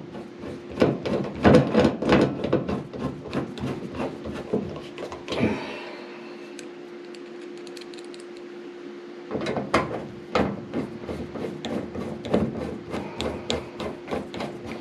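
Screws being driven by hand with a nut driver into the dryer's sheet-metal cabinet: a run of clicks and scraping rubs, a pause of a few seconds, then a second run, over a faint steady hum.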